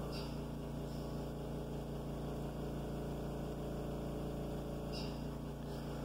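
Steady electrical hum with a stack of overtones, unchanging throughout, with a few faint light sounds near the start and about five seconds in.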